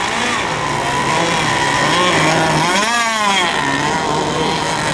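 Radio-controlled racing boat engines running on the water. About three seconds in, one engine's pitch rises and falls again as it revs.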